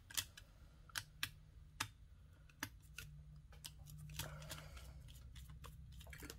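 Scattered sharp clicks and taps of a screwdriver on the metal terminal screws and plastic body of a mains plug as the screws are loosened. A low steady hum runs underneath.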